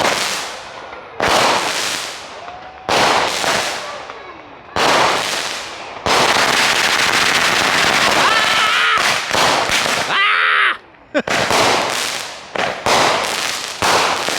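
Consumer fireworks going off: a string of sharp bangs a second or two apart, each trailing off in crackle. In the middle comes a few seconds of dense, unbroken crackling with a brief rising whistle, then more bangs.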